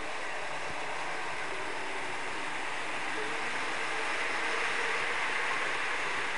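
A steady, even hiss with no distinct knocks or clicks.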